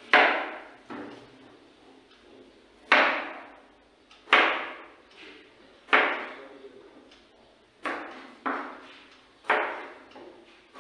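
Chef's knife chopping down onto a plastic cutting board: about eight sharp, unevenly spaced strikes, each ringing out briefly.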